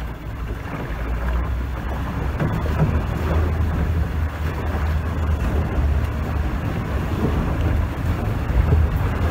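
Water rushing and spraying along a sailing trimaran's ama hull as it drives through waves at speed, with wind buffeting the microphone as a steady low rumble.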